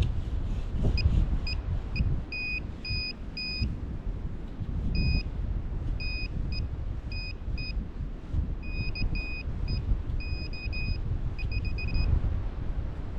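Metal detecting pinpointer giving runs of short, high electronic beeps, some brief and some held a little longer, as it is probed into a hole in beach sand, locating a buried metal target that proves to be a rusty bottle cap. A low rumble runs underneath.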